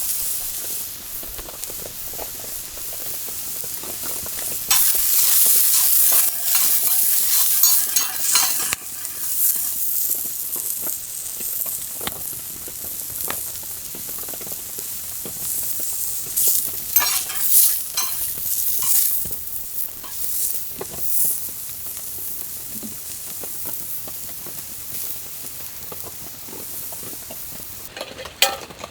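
Food sizzling in a pan, with a utensil stirring and scraping it; the sizzling swells about five seconds in and again past the middle.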